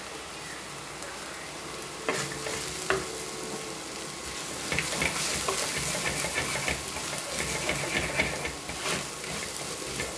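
Onion and ginger-garlic masala with freshly added coriander powder sizzling in oil in a pan while being stirred. There are a couple of light knocks about two seconds in, and the stirring gets busier from about halfway.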